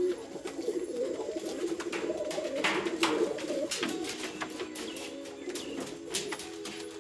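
A flock of domestic pigeons cooing together in a continuous, overlapping chorus of low coos, with scattered short clicks and rustles among them.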